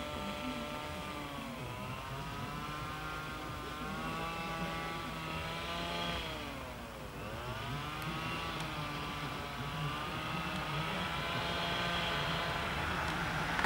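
Motor vehicle engine running, its pitch falling and rising as it slows and speeds up, with one deep dip about seven seconds in before it climbs again.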